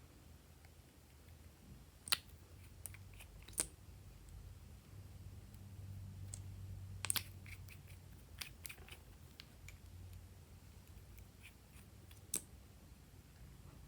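Slime being worked by hand, giving sparse sticky clicks and pops, four of them sharper than the rest, over a faint low hum.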